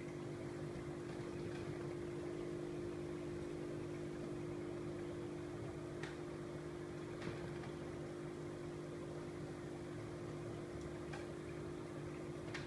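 Steady electrical hum of running aquarium equipment, an air pump driving a stream of bubbles and a filter, under a faint bubbling hiss. Two faint ticks about six and seven seconds in.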